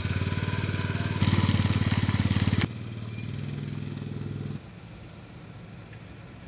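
Quad bike (ATV) engine running under load, revving louder about a second in, then cutting off abruptly. A lower, steady engine sound follows and drops to a faint low rumble for the last two seconds.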